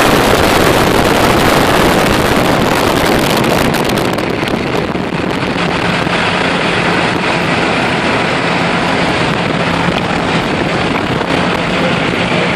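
Steady wind rush and road noise from travelling at highway speed, with the high hiss easing about four seconds in. A low steady hum comes in around the middle.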